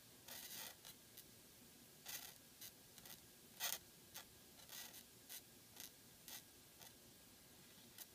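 Quill pen nib scratching across paper in a series of short strokes as cursive letters are written, faint, with the loudest stroke about three and a half seconds in.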